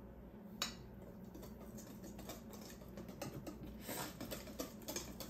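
Faint, irregular clicks and scrapes of a utensil against a mixing bowl as cake batter is stirred, getting busier about three and a half seconds in.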